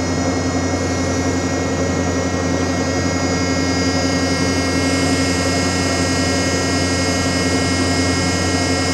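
Ship's deck crane hydraulic power unit running under load as the crane is worked: a steady machine hum with a high whine. The whine grows a little stronger about halfway through.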